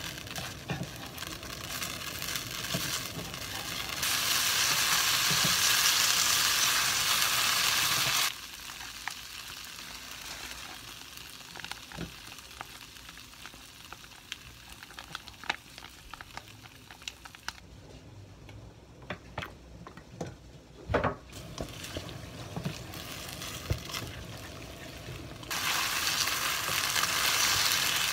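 Spaghetti frying in a nonstick wok, with loud sizzling in two spells, one about four to eight seconds in and one near the end as the noodles are stirred through tomato sauce. Between them is a quieter stretch of light clicks and taps from wooden chopsticks and a spoon against the pan.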